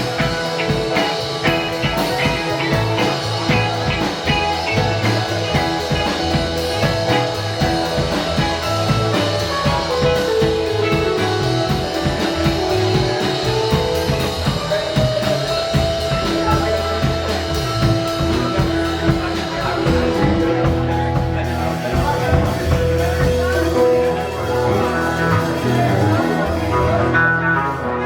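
Live rock band playing an instrumental jam with no vocals: drum kit keeping a steady beat under electric guitar and bass lines.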